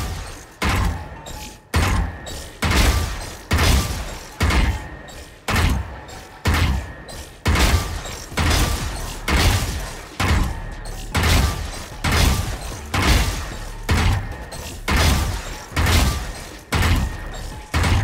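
Video-game rifle shots in a first-person shooter: a sharp shot about once a second, some twenty in all, each fading quickly, as bots are shot down one after another.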